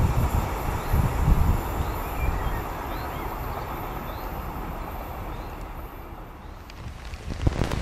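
A freight train's rumble fading away as it recedes down the line, with a few faint chirps over it. Near the end the sound jumps abruptly to a louder, wind-like noise.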